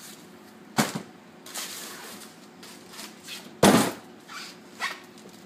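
Plastic packaging rustling as a shrink-wrapped parcel is handled, with two thumps of the parcel against a table, the louder one about three and a half seconds in.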